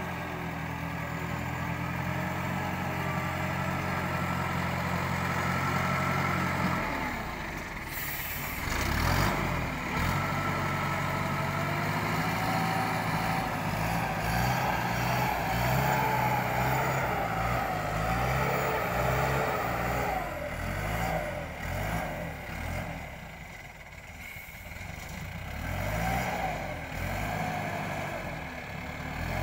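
Wheel loader's diesel engine running while it pushes and grades soil. It is steady for the first several seconds, then its pitch rises and falls repeatedly as the load changes, with a short burst of noise about eight seconds in.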